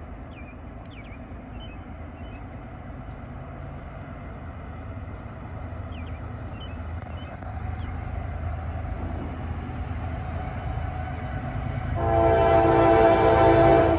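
Diesel locomotives of an approaching double-stack freight train, a low rumble growing steadily louder. Near the end the lead locomotive's air horn sounds loudly for about two seconds in short blasts, the warning for the grade crossing.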